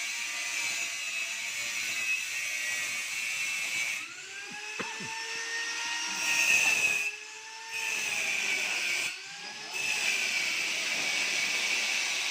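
A fish meal machine running with a steady high-pitched mechanical whine. The whine drops out briefly three times near the middle, and fainter tones slide up and down as it comes back.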